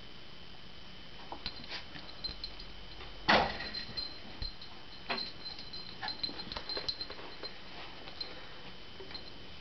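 Silky terrier playing ball on carpet: one loud thump about three seconds in, then a run of light knocks, scrabbling and jingling as the dog chases and tussles over the tennis ball.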